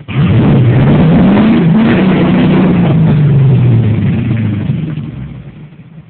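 1987 Jeep Wrangler YJ's 5.7 Vortec V8 revving hard under load, the pitch climbing for about two seconds and then sagging slowly before dying away near the end. With open diffs on damp ground it fails to find grip on the rock climb.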